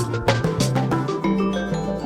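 Background music: percussive beats with mallet-like pitched notes, the drums dropping out just over a second in and leaving held tones.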